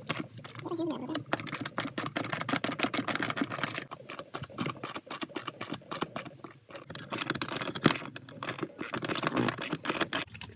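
Socket ratchet clicking rapidly as the 10 mm bolts holding the shifter assembly are undone, with short metallic clinks and one sharper click about eight seconds in.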